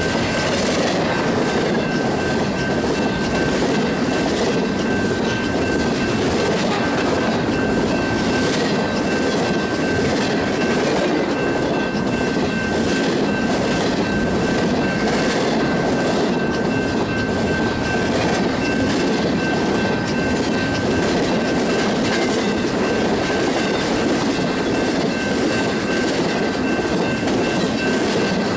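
Freight cars of a fast BNSF intermodal train rolling past at speed, the wheels clattering over the rail joints in a steady repeating rhythm, with a thin steady high whine over the rumble.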